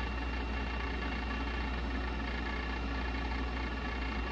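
Steady low mechanical hum of a running machine, even and unchanging, with a few faint steady whines above it.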